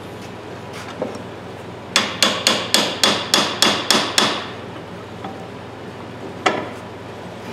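A hammer strikes a rust-seized ratchet head clamped in a steel bench vise, in a quick run of about nine ringing metal blows, roughly four a second. One more blow comes about two seconds later. The hammering is meant to break the rust loose in the locked-up mechanism.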